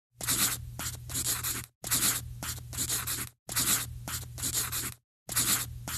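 A looped intro sound effect: the same short, noisy, hiss-like segment about a second and a half long plays four times with brief gaps, a steady low hum under each repeat.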